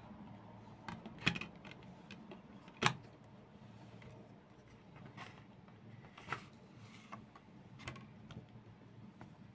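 Handling of a CD digipak with clear plastic disc trays: two sharp clicks as a disc is pressed onto the tray's hub, then several lighter clicks and taps as the case is handled and the cardboard booklet is slid out of its pocket.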